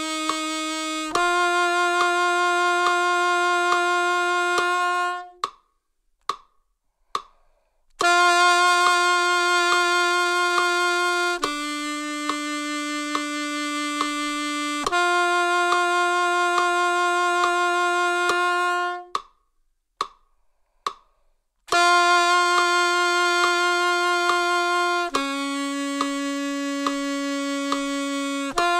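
Yamaha Custom 82Z alto saxophone playing long tones as a tone-building warm-up: steady held notes of three to four seconds each, stepping between a few nearby low pitches, with two short breaks for breath. A metronome ticks steadily under the notes and through the breaks.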